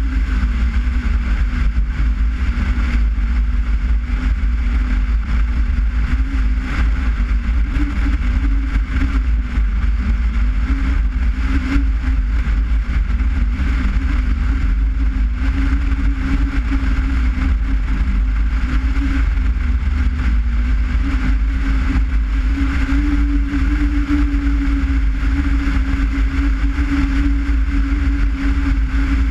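Skoda Forman car driving at a steady pace: a continuous engine drone that wavers slightly in pitch, over a heavy low rumble of road and wind noise.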